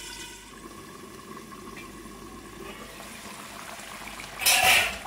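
Steady hissing and bubbling of chicken and tomatoes cooking in a covered karahi over a gas burner turned up high. About four and a half seconds in comes a brief, much louder burst of hiss.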